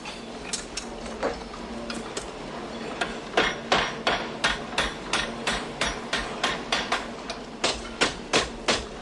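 Hand hammer striking metal while a hinge is being made: a few light, scattered taps at first, then from about three seconds in a steady rhythm of about three ringing blows a second.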